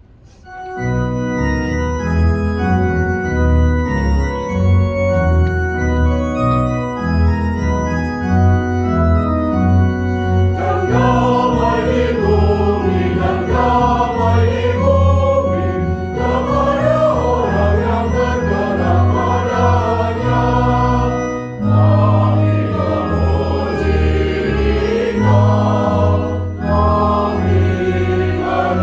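A mixed church choir singing a hymn over organ accompaniment. The organ plays held chords alone for about the first ten seconds, then the choir comes in.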